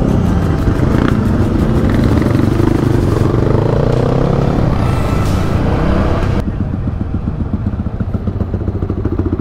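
Motorcycle engine heard from the rider's own bike, with wind rush: a few seconds in the engine revs up, rising in pitch. About two-thirds of the way through the hiss drops away suddenly and the engine settles into a slower, even pulsing run.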